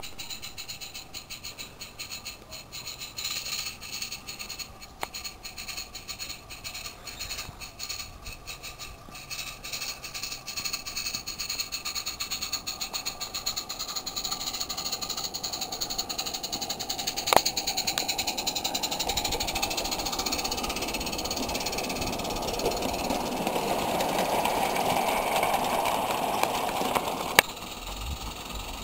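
Live-steam Roundhouse Elsa garden-railway locomotive fitted with a Summerlands chuffer, its exhaust beats chuffing rhythmically as it works hard to move a heavy train, growing louder as it gets going. A sharp click sounds about two-thirds through and another near the end.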